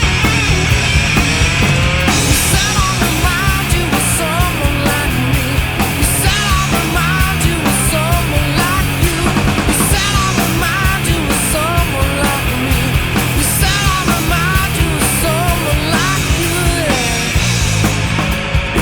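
Rock band playing an instrumental passage: dense distorted guitars and steady drums, with a lead line that bends and wavers in pitch over the top.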